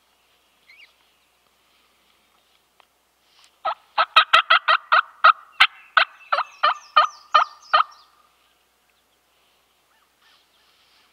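A turkey call run as a quick series of hen yelps, roughly fifteen sharp notes at about four a second for about four seconds, starting a little before the middle: a hunter calling to draw a response from gobblers.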